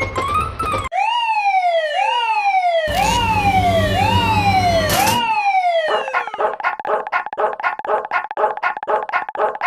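Synthesized warning sounds of a cartoon railway level crossing. First comes a series of siren-like tones, each falling in pitch, under a second apart, with a low rumble under the middle ones. About six seconds in, these give way to a rapid, even ringing alarm, about four or five strokes a second, like a crossing bell.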